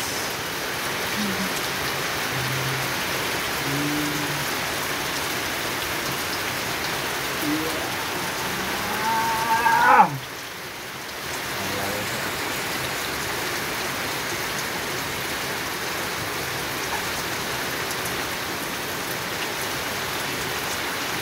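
Steady rain falling on a small garden fish pond and the wet stones around it. About ten seconds in, a rising whine climbs and then cuts off suddenly.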